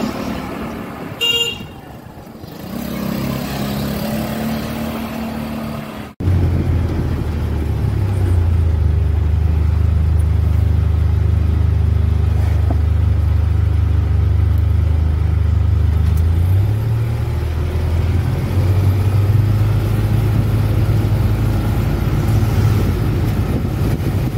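Street noise with a brief horn toot about a second in. After a cut, a Polaris Ranger side-by-side's engine runs with a steady low drone as it drives slowly, its pitch shifting a little now and then.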